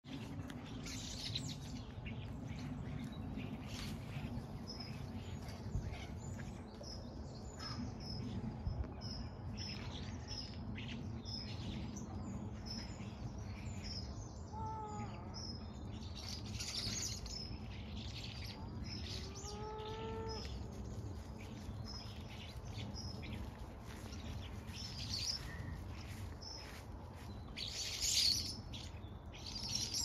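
A flock of common starlings chattering and whistling while feeding in apple trees: many short high chirps and clicks, with a louder burst of chatter near the end. Two lower, drawn-out calls come in around the middle, over a steady low rumble.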